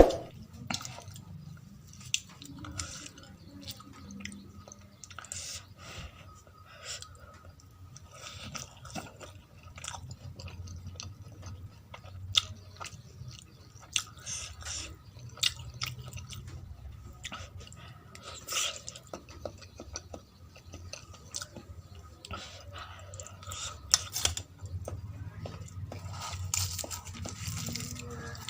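A person chewing and biting mouthfuls of poori with potato curry, close to the microphone: irregular short clicks and crunches of chewing, one after another.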